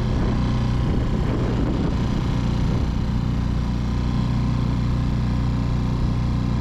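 Small four-stroke single-cylinder outboard motor, a Mercury F 3.5 (the same as the Tohatsu MFS 3.5), running at a steady speed.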